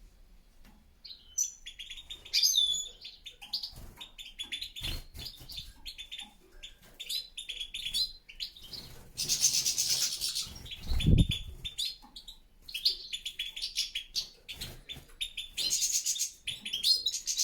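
European goldfinches chirping and twittering continuously, with two harsher, noisier stretches of calling about nine seconds in and near the end. A single low thump comes about eleven seconds in.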